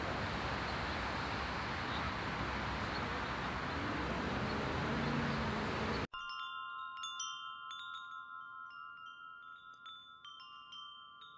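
A steady, even outdoor hiss that cuts off abruptly about six seconds in. Then a wind chime tinkles, with ringing tones, light strikes and a slow fade.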